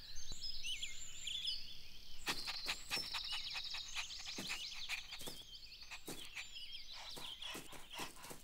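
Cartoon outdoor ambience of small birds chirping and twittering. About two seconds in, a quick, uneven run of short soft sounds joins it.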